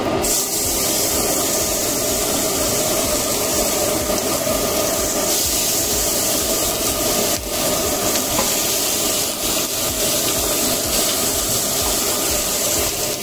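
Chicken thighs sizzling in hot olive oil in a stainless steel pot as they are laid in skin side down to sear, a steady hiss.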